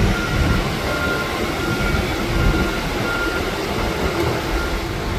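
Forklift backup alarm beeping repeatedly, roughly once a second, over a steady low rumble.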